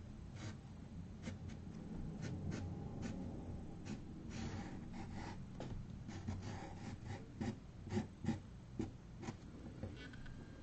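Felt-tip permanent marker rubbing across a canvas board in short, quick strokes as lines are inked over a pencil sketch, with a few louder strokes about eight seconds in.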